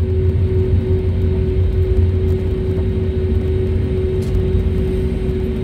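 Cabin noise inside a jet airliner rolling on the ground after landing: a steady low rumble with a steady engine hum over it.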